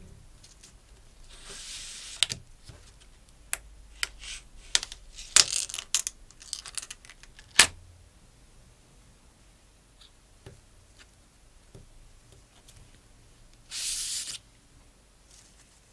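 Gloved hands handling a silicone watch band in a white card tray: a short rubbing scrape, then a run of sharp taps and clicks with two loud ones, and near the end a brief swish of the band sliding against the card.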